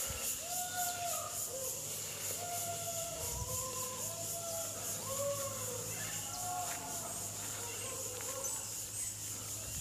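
Outdoor ambience of insects and birds. A steady, high, pulsing insect drone runs under many short, arching whistled bird calls that overlap at different pitches.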